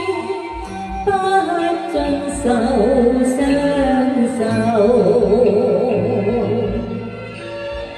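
Music: a slow song's accompaniment carrying a wavering melodic line between sung lines.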